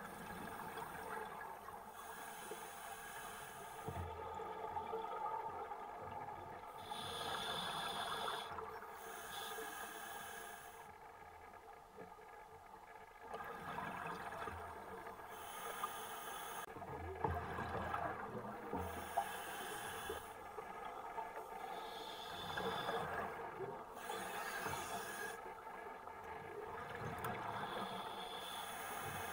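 Underwater recording of a scuba diver breathing through a regulator: hissing inhales alternate with bubbling exhales every few seconds, over a steady hum.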